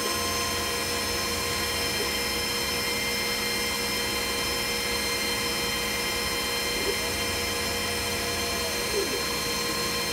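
Glowforge CO2 laser cutter running mid-cut: a steady machine whir with several steady tones over it, and a low hum that drops away near the end.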